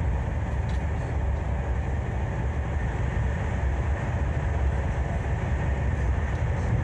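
Thalys high-speed train running at speed, heard inside a passenger car: a steady, even noise with most of its weight in a low rumble.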